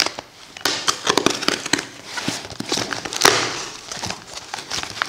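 A knife slitting the packing tape on a cardboard box, then the cardboard flaps being pulled open: a run of scratchy rasps and sharp crackling clicks.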